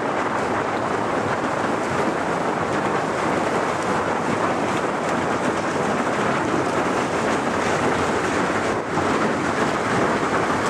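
Commuter boat ploughing through broken sea ice: a steady, dense crunching and crackling of ice floes grinding along the hull and churning in the wake.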